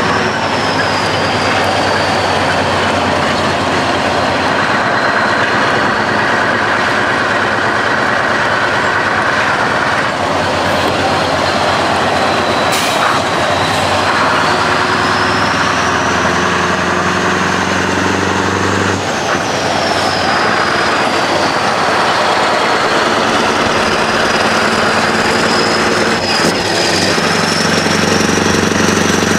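Scania R500's V8 diesel with an open straight-pipe exhaust, running low and steady as the truck rolls slowly past. A high thin whistle slowly rises and falls over it, and a brief sharp sound cuts in about halfway.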